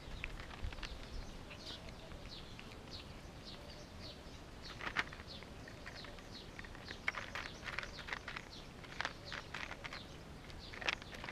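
Cats eating from a plastic tray close to the microphone: a run of short wet clicks and smacks from chewing and licking, sparse at first and thicker from about halfway on.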